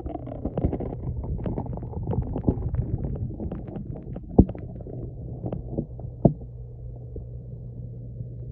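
Muffled underwater sound inside a reef aquarium, picked up by a submerged phone's microphone. A steady low hum runs under a churning rumble, with scattered clicks and knocks; the loudest knocks come about four and a half seconds in and again just past six seconds.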